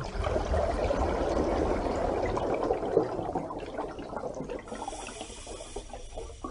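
Water sound effect: a rush of moving water, louder for the first three seconds and then easing off.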